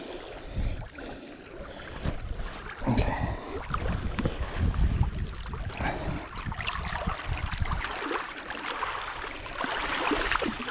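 Water sloshing at the shoreline as a bass is held in the shallows and released, with a low, uneven rumble of wind on the microphone. Near the end comes a brighter splashing swish as the fish kicks free and swims off.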